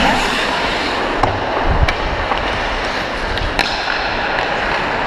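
Ice hockey skates carving and scraping on the ice as the player skates, with a few sharp clicks of the stick blade on the puck.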